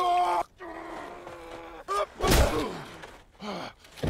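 Men grunting and groaning as they grapple in a hand-to-hand fight, with heavy thuds of blows: a loud one about halfway through and another near the end.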